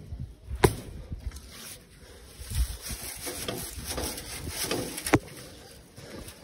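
A broom being knocked to shake it out, with two sharp knocks about four and a half seconds apart and brushing and scraping between them as dirt is cleaned off a tractor.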